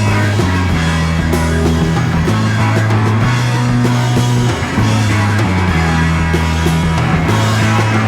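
Hard-rock band recording: electric guitar over bass and drums, the bass line stepping between held low notes about once a second.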